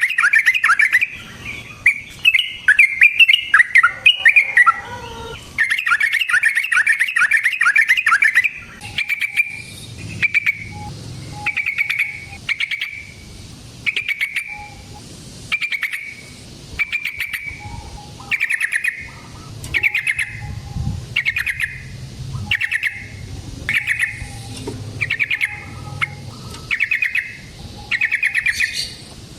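Yellow-vented bulbul (trucukan) singing: rapid bubbling chatter and a falling run in the first eight seconds or so, then a steady series of short clipped notes about one a second.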